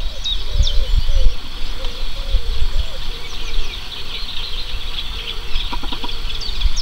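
Dawn chorus: many small birds chirping and singing at once, with a lower call repeated every half second or so, over a low wind rumble on the microphone.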